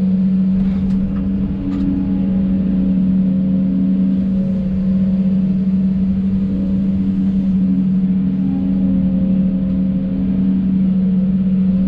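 Hidromek 220 excavator's diesel engine running at a steady speed, heard from inside the operator's cab.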